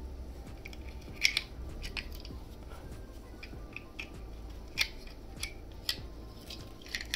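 Plastic parts of a snap-together model-kit toy robot being handled and fitted: scattered short clicks and light knocks of plastic on plastic, a pair about a second in and more every second or so.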